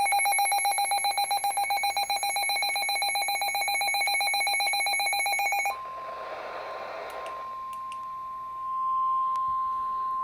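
A weather alert radio's built-in alarm beeping in rapid pulses, a harsh buzzy tone that stops about six seconds in. The steady single tone of the NOAA Weather Radio 1050 Hz warning alarm then takes over, signalling that a new warning follows.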